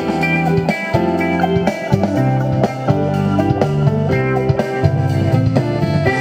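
Instrumental passage of a Thai song with electric guitar, bass and drum kit keeping a steady beat, played loud through LSM FR112M loudspeakers in a sound test.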